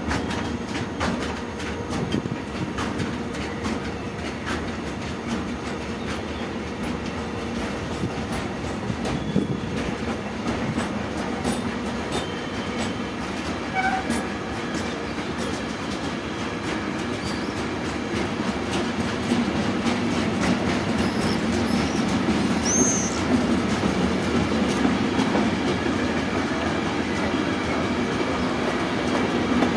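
A train running past on the rails, its wheels clattering steadily over the track, growing louder over the last third. There is a brief high squeal about two-thirds of the way through.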